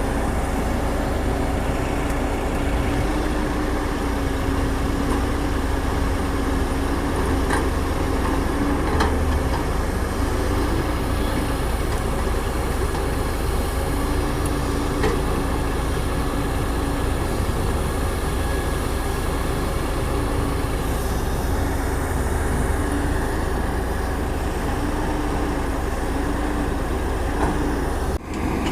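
Caterpillar 320D hydraulic excavator's diesel engine running steadily under working load, with a droning tone that comes and goes in stretches as the machine digs.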